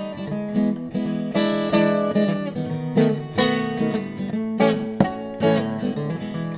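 Acoustic guitar strummed in chords with a steady rhythm, the instrumental intro of a song before the vocal comes in.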